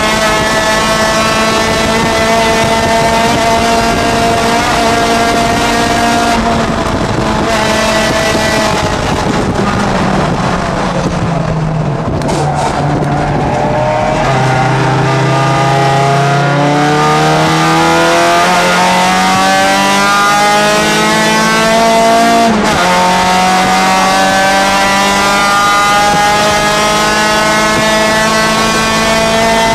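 A Honda Challenge H4 race car's four-cylinder engine at racing revs, heard from inside the cockpit. The pitch holds high at first, falls from about eight to fourteen seconds in as the car slows for a corner, then climbs steadily under acceleration. There is a brief break about two-thirds of the way through.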